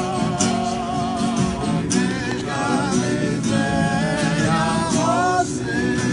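A small group of men singing a melody together, their held notes wavering with vibrato, accompanied by a strummed acoustic guitar.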